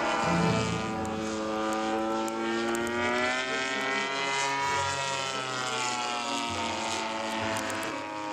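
Gasoline engine of a quarter-scale Sopwith Pup RC model biplane running in flight, a steady propeller drone whose pitch drifts slowly up and down.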